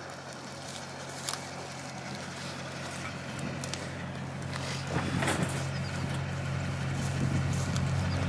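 Pickup truck engine idling: a steady low hum that grows gradually louder, with scattered light clicks and rustles.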